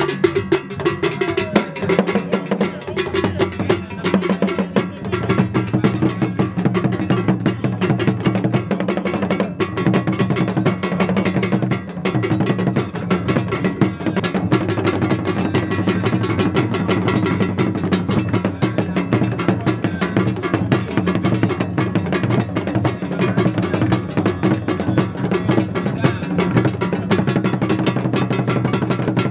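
Percussion-led music: drums played in a quick, dense rhythm, with wood-block and bell-like strokes over steady sustained tones underneath.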